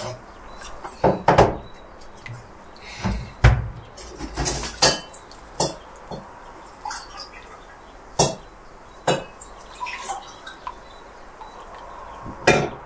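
Mugs and kitchenware handled at a kitchen counter while coffee is made: a string of separate clinks and knocks. The loudest come about a second in, around three and a half and five seconds in, about eight seconds in and near the end.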